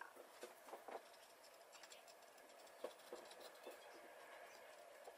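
Faint, irregular scratching and light clicks of a cotton bud damp with isopropanol rubbing over the plastic front end of an OO gauge model locomotive.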